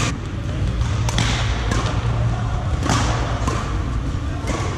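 Badminton rackets striking a shuttlecock in a doubles rally: several sharp hits about a second apart, over a steady low hum.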